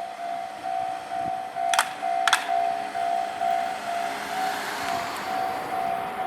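Japanese railway level-crossing warning bell ringing in a steady repeating beat. About two seconds in come two sharp clacks half a second apart, and a spell of broader rushing noise follows in the middle.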